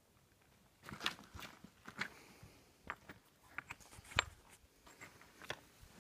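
Footsteps of a hiker walking over gritty sandstone: short, uneven crunching steps that begin about a second in.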